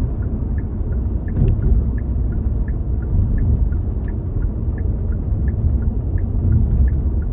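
Steady road and engine rumble inside a moving car's cabin, with the turn-signal indicator ticking evenly about three times a second.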